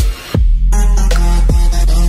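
Electronic dance music with a pounding beat; a deep, heavy bass line drops in about half a second in and holds under the drums.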